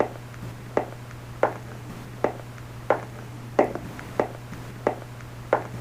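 A steady run of sharp knocks or taps, about one and a half a second, over a steady low hum.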